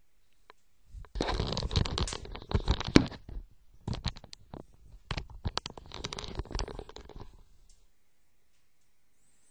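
Close, irregular rustling and scraping packed with small clicks, starting about a second in and dying away after about seven seconds.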